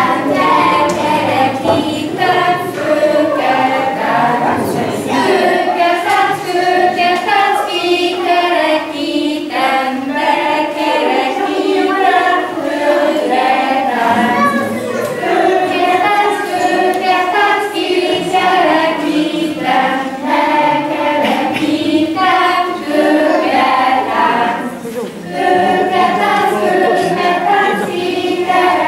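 A group of young children and women singing a ring-dance song together.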